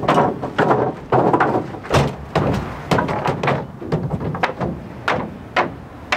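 Long wooden 2x4 boards being loaded into a pickup bed: a dozen or so irregular wooden knocks and thunks as the boards bump against one another and the truck, with scraping and rattling between the knocks.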